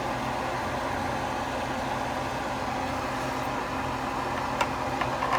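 Steady mechanical hum of background noise, with a few short, light clicks near the end as a knife cuts into the pie dish.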